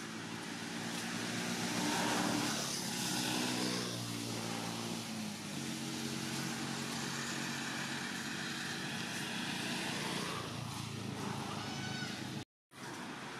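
A motor vehicle's engine running, its pitch shifting and loudest about two seconds in. The sound cuts out for a moment near the end.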